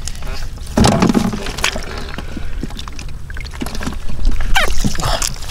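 Water splashing and sloshing in irregular bursts, louder about four seconds in.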